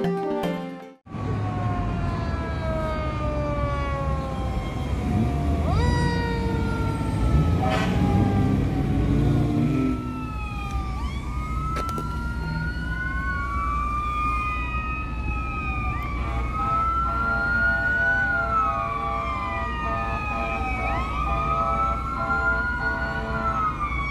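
Fire engine and ambulance sirens wailing as the units respond along a road. Several sirens overlap from about ten seconds in, rising and falling in pitch, over the rumble of traffic.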